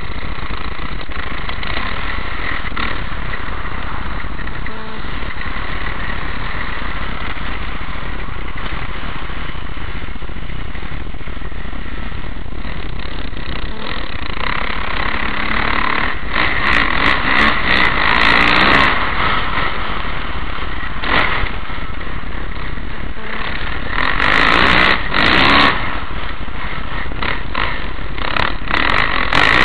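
Kawasaki KX450F single-cylinder four-stroke motocross engine running under load as the bike is ridden, heard through a helmet camera's microphone. It is steady, with a few louder surges of throttle in the second half.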